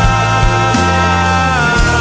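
Instrumental passage of a Christian pop ballad: sustained notes with a steady bass line and soft drum beats, the held notes sliding down in pitch about three-quarters of the way through.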